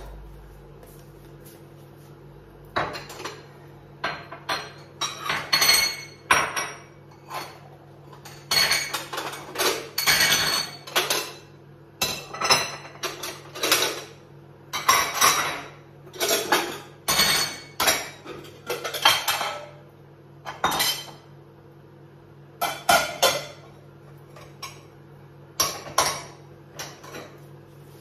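Dishes and cutlery clattering and clinking in irregular short bursts as they are handled at a kitchen counter, over a steady low hum.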